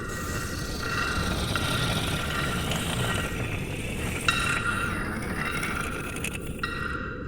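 Steady low rushing noise like brown noise, with a few high, steady electronic tones over it that switch in and out abruptly every few seconds, like signals on a radio receiver.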